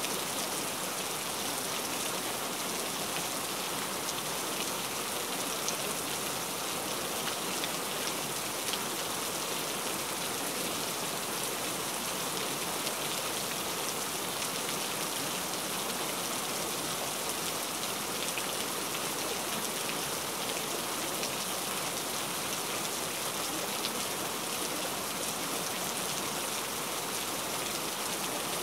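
Steady rain: an even, unbroken patter with faint individual drop ticks, the same level throughout.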